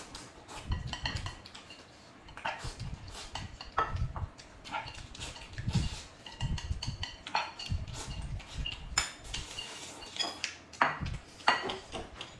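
Close-up mealtime sounds: chopsticks clicking against plates and bowls, with chewing and noodle slurping in between.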